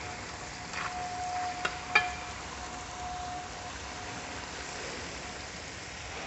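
Thick beef dry roast sizzling in a large metal pot while a wooden spatula stirs it, with two sharp knocks of the spatula against the pot about two seconds in.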